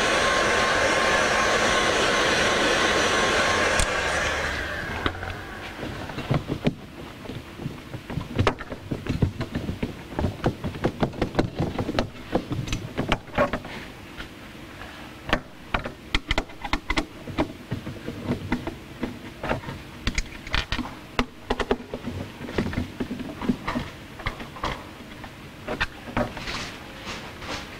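A handheld heat gun blowing steadily with a faint whine, then switched off about four seconds in and running down. Then a long run of irregular clicks, knocks and clatter as the metal tubes and fittings of a Watkins No Fault hot tub heater are handled and taken apart.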